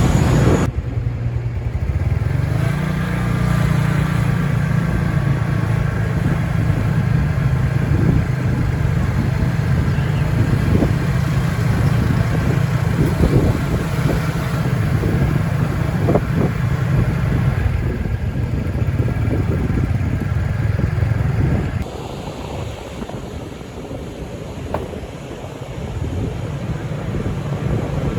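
A motor vehicle's engine running steadily with a low hum, heard while travelling; about 22 seconds in the engine hum drops away, leaving quieter road and wind noise.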